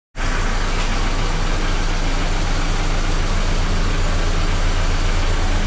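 A car engine idling steadily: an even, low, pulsing hum with a constant noisy wash over it.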